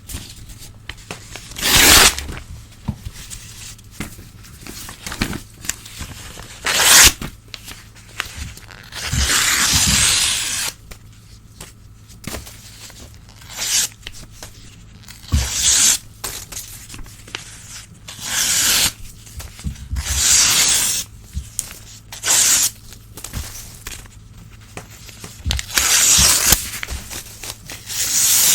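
Old newspaper being torn by hand in a series of separate rips, some short and sharp, some drawn out over a second or two, with quieter rustling and handling of the paper between them.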